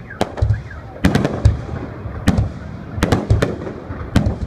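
Fireworks display: aerial shells bursting in a series of sharp bangs at uneven spacing, about eight in all, some nearly together, each with a low boom.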